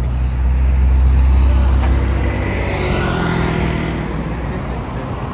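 Road traffic passing close by: a car and a motor scooter drive past, with a low rumble and tyre noise that swells and fades around three seconds in.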